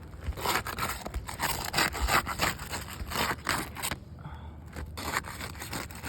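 Asphalt roof shingles being worked loose with a tool, breaking the adhesive seal strip between the test shingle and its neighbours: repeated scraping and crackling strokes, with a brief pause about four seconds in.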